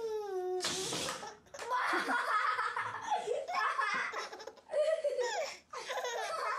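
A baby laughing in repeated bursts of giggles. The laughter follows a short falling tone and a burst of hiss in the first second and a half.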